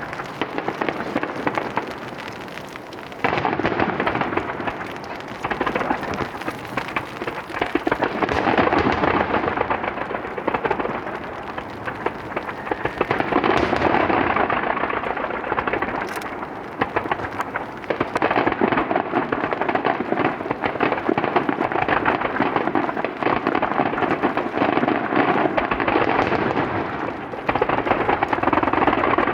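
Star mine fireworks barrage: a rapid, unbroken run of booms and dense crackling that rolls like thunder, swelling in waves with brief lulls about three seconds in and near the end.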